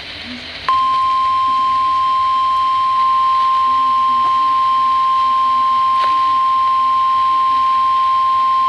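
NOAA Weather Radio 1050 Hz warning alert tone: one steady, unbroken beep that starts about a second in, over faint radio hiss. It is the attention signal that announces a new warning, here a severe thunderstorm warning.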